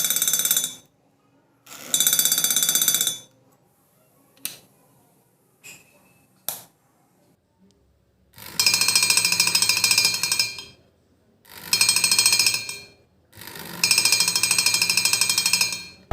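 Homemade laser-and-LDR security alarm ringing in five rapid, pulsing bursts of one to two seconds each, set off each time the laser light on the LDR sensor is cut. There are a few short clicks in the pause between the second and third bursts.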